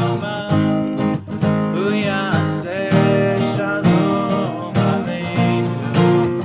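Music: a strummed acoustic guitar with a sung melody over it.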